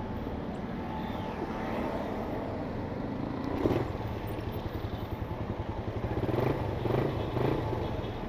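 Motorcycle engine running as the bike rides slowly along the road, its sound swelling briefly a few times.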